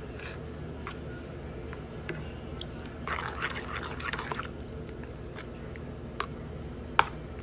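Chopped garlic frying in oil and butter in a frying pan: a low sizzle with a burst of crackling about three seconds in, and a few sharp clicks, the loudest near the end.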